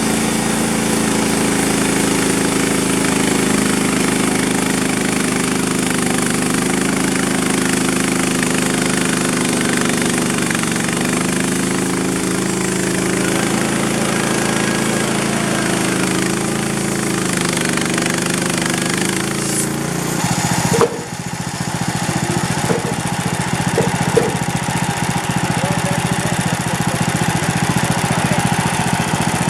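Gas engine of a Frontier OS27 bandsaw mill running steadily as the band blade saws through an oak log. About 20 seconds in the sound changes abruptly: the engine's steady note gives way to a rougher running sound, with a few sharp knocks shortly after.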